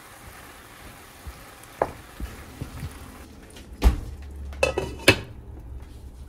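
Vegetables and tomato sauce sizzling in a frying pan while a wooden spatula stirs them, with light scraping taps. Then come a few sharp knocks and a ringing clink as a glass lid is set on the pan.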